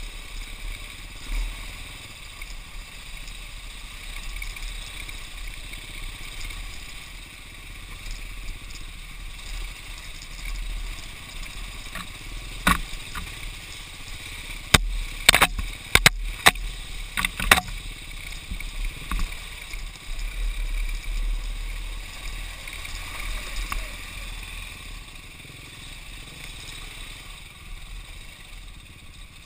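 Motorcycle being ridden along a rocky dirt trail: a steady engine rumble and running noise, with a burst of sharp knocks and clatters about halfway through.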